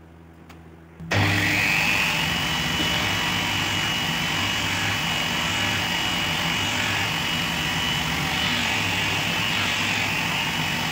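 Disc sander running and sanding a small wooden block, a steady high whine over a rasping hiss. It starts abruptly about a second in.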